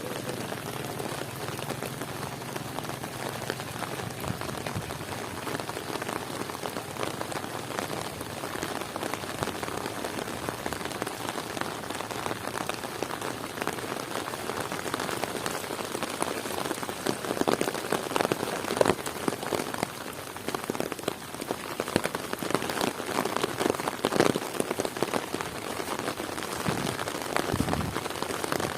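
Heavy rain falling steadily, a dense patter of drops, with louder spells about two-thirds of the way through and again near the end.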